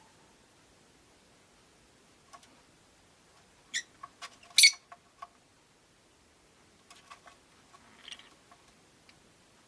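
Rosy-faced lovebirds chirping: two short, shrill chirps a little under a second apart around the middle, the second the loudest, among small clicks and taps, then a softer chirp with a few more clicks near the end.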